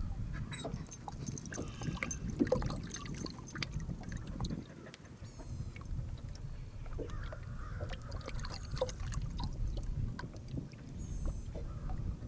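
Outdoor ambience on a fishing boat on the water: a steady low rumble with scattered light clicks and knocks throughout.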